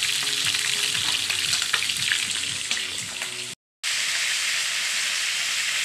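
Pieces of fish frying in a pan of hot oil, sizzling and crackling steadily. The sound cuts out for a moment about three and a half seconds in, then the sizzle carries on.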